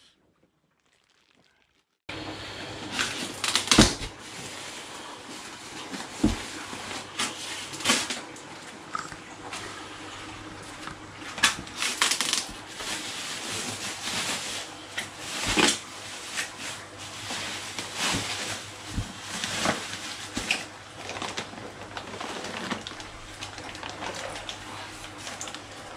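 Irregular rustling, clicks and knocks of fish bags and boxes being handled during unpacking, over a steady low hum; it starts suddenly about two seconds in.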